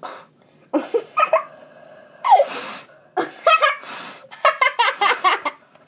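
A boy laughing in short bursts and giggles, with a breathy, noisy outburst about two seconds in.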